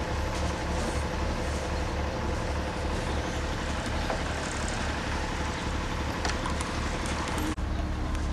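A large vehicle engine running steadily with a low, pulsing rumble. Its sound changes abruptly near the end.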